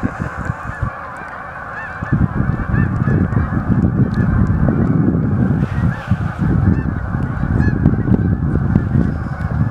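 A large flock of Canada geese honking in flight, many overlapping calls at once, over a low rumble that grows louder about two seconds in.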